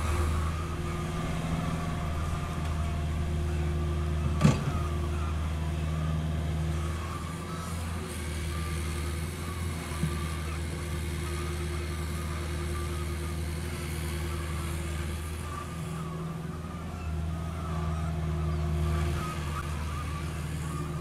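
CAT 305.5E2 mini excavator's diesel engine running steadily while it digs soil, its level swelling and easing slightly with the work. A single sharp knock comes about four and a half seconds in, and a fainter one about ten seconds in.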